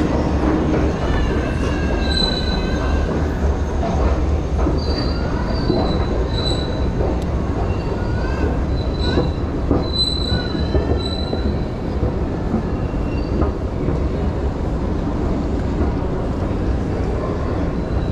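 New York City subway train running with a steady low rumble, its wheels squealing in high, wavering tones for the first twelve seconds or so before easing off.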